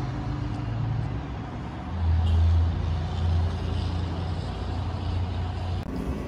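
Motor vehicle engine running nearby with a low, steady hum, which gets louder about two seconds in and drops near the end.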